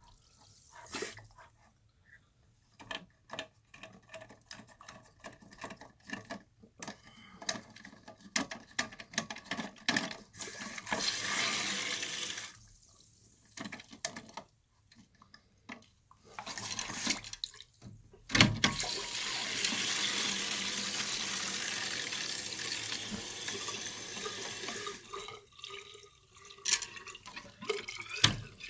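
Toilet cistern refilling through its ball-cock fill valve: water hissing and splashing into the tank in short spells, with drips and small clicks between, then a longer steady rush of water in the last third.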